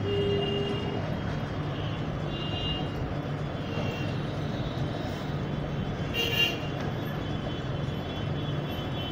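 Steady background hum and hiss with no speech, broken by a few brief high tones, the clearest about six seconds in.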